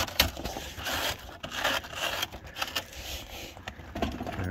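A hand scraping and brushing loose rust flakes across the corroded steel boot floor of a Ford Cortina Mk4 estate: irregular scratchy rasps, with a sharp click shortly after the start.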